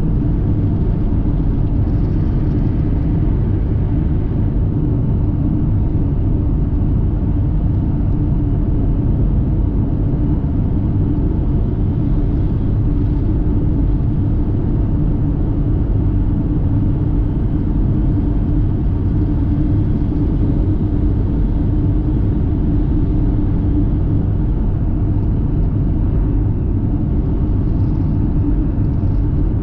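Car driving at a steady speed: a constant low rumble of engine and road noise.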